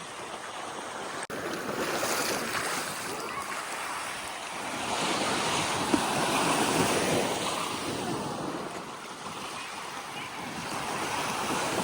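Ocean surf washing onto the beach: a steady rush of waves that swells twice, about two seconds in and again in the middle.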